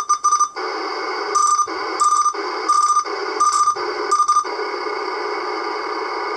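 CB radio speaker hissing with steady static, the receiver's noise with a power inverter plugged in. About six short electronic beeps sound at a steady pace over the first four and a half seconds as a front-panel knob is turned, each one briefly cutting the hiss.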